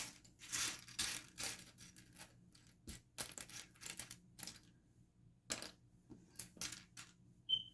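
Small plastic LEGO bricks clicking and clattering against each other as they are picked through and sorted by hand, in irregular sharp clicks.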